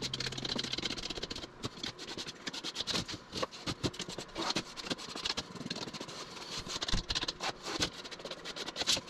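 Irregular light clicks, taps and scrapes of handling, about a dozen sharper knocks scattered through it.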